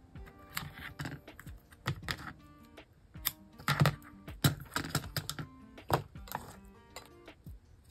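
Paper and card being handled and pressed down by hand on a work surface: irregular light taps, clicks and rustles, with soft background music underneath.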